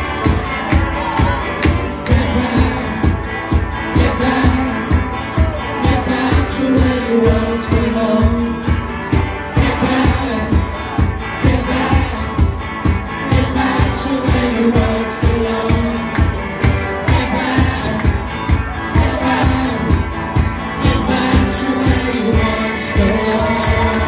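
Live band playing a song, with a singer over a steady drum beat.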